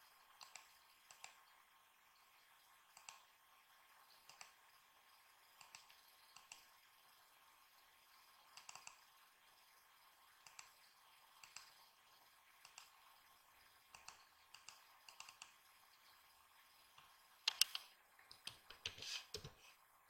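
Faint computer mouse and keyboard clicks: single clicks every second or so, then a quick run of louder clicks near the end.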